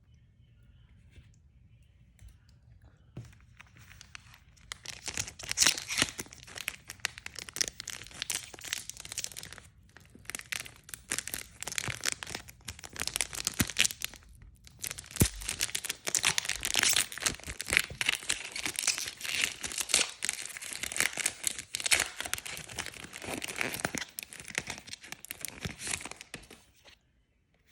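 Packaging being torn open and crinkled by hand, a long run of crackling with a short pause about midway.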